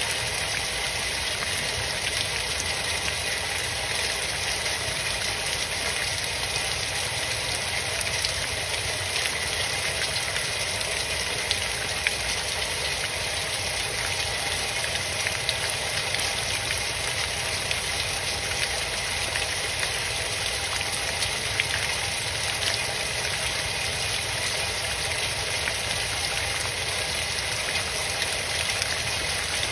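Heavy rain falling steadily, a constant wash of water noise with scattered drop ticks.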